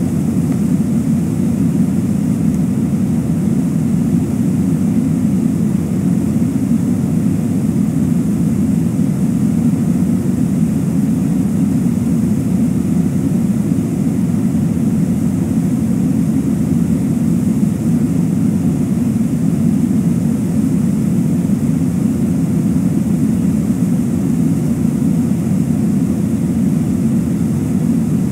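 Steady low rumble of rushing river water, unchanging throughout.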